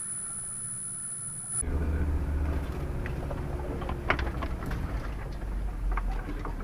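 Off-road 4x4's engine running low and steady as the vehicle pushes through dense dry brush, with branches scraping and snapping against the bodywork in short sharp cracks. The first second and a half is quieter, with a faint steady high whine.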